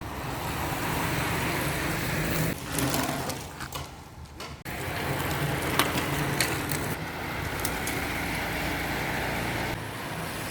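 Bicycle being ridden: steady road and wind rumble. It drops away suddenly about two and a half seconds in, leaving a few sharp clicks, then comes back abruptly two seconds later.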